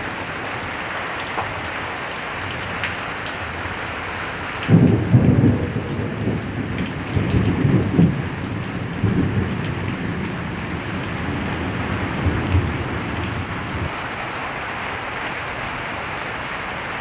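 Steady rain falls throughout. About five seconds in a thunderclap breaks, then rumbles on in several rolls for about nine seconds before fading back into the rain.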